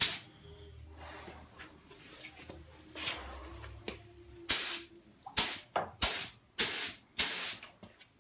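Compressed-air paint spray gun hissing as it sprays gold paint: one burst at the start, then a run of short trigger pulls in the second half, about one every half second.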